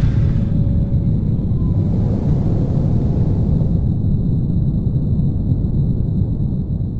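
A steady, loud low rumble, strongest in the bass, with no clear pitch.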